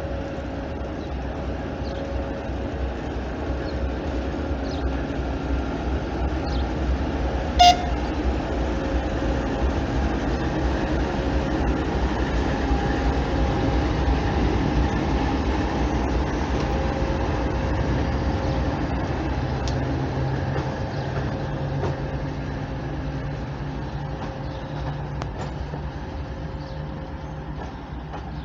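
Soviet-built TEP70 passenger diesel locomotive's V16 diesel engine running as it moves past: a steady rumble and hum that grows louder as the locomotive comes close, then fades as it draws away. A single brief, sharp sound about eight seconds in is the loudest moment.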